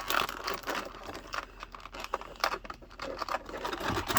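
Small plastic action-figure parts being handled: irregular rustling, scratching and light clicks of plastic against plastic.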